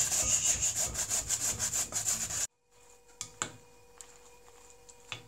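Raw potato being grated by hand on a grater into a bowl: a quick run of even rasping strokes that cuts off about two and a half seconds in. After it comes a quiet stretch with a faint steady hum and a few light clicks of a spatula mixing grated potato and eggs in a glass bowl.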